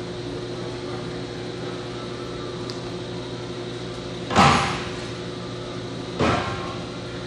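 Steady low machine hum, with two short noisy bursts about four and six seconds in, the first louder and longer.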